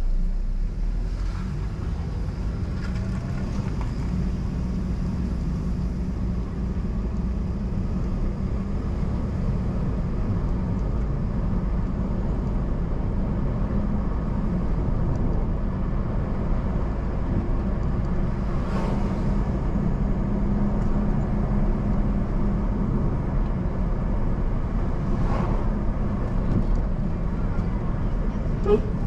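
Steady road and engine noise of a car being driven, a low rumble with a constant hum, broken only by a few faint clicks.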